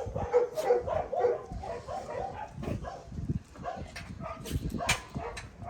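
Dogs making short, pitched yipping calls, with a few sharp knocks in between.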